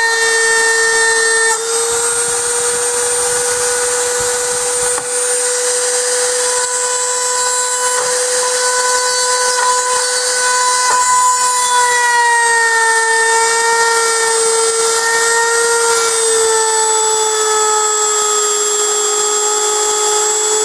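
Small handheld rotary tool running with a steady high whine as its bit drills out a hard metal rivet on a die-cast toy car's base. The pitch dips slightly about twelve seconds in and settles a little lower.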